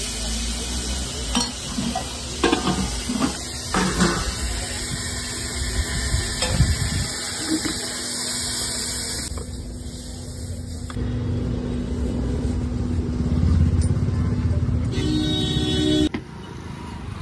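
Steady sizzling hiss from a street food stall, with several short clinks and knocks in the first few seconds as a steel ladle serves curry from a steel pot. It gives way to street traffic noise, and the level drops sharply near the end.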